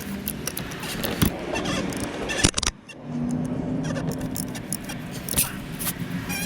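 Irregular metallic clicks and clatter of a wrench and socket being worked at the engine's oil filter housing, with a steady low hum coming in about halfway through.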